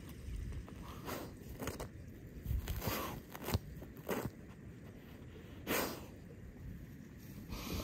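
A dog digging in soil and dry grass with its front paw and snout: irregular scrapes and crunches of dirt, several in a row with short pauses between.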